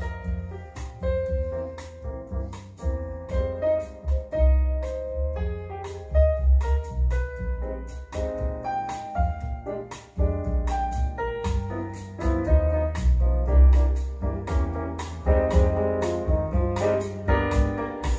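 Jazz piano track played through a pair of Klipsch R-51M bookshelf speakers with no subwoofer: piano notes over a strong bass line, with light ticking percussion.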